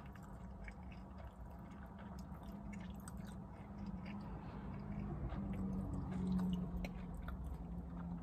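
A person chewing a mouthful of sandwich with small wet mouth clicks, heard close up inside a car cabin, over a low hum that swells in the middle.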